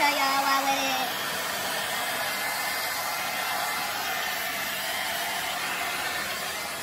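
Handheld hair dryer running steadily, an even rush of blown air. A voice is briefly heard over it in the first second.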